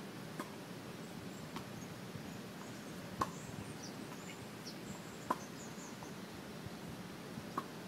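Tennis ball being hit back and forth in a warm-up rally: sharp pops of racquet strikes and ball bounces every second or two, the loudest three a couple of seconds apart in the second half. Faint bird chirps come in between.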